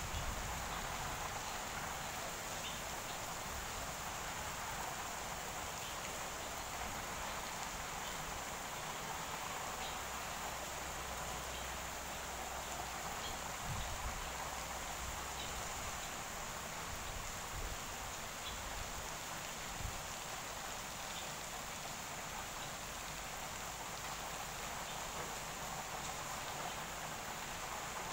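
Steady hiss of light rain, with faint scattered ticks.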